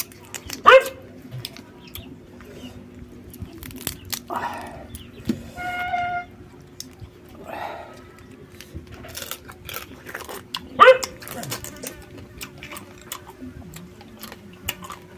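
A dog barks twice, about ten seconds apart, each a short bark falling in pitch. Between the barks are many sharp clicks from eating the live crabs and snails.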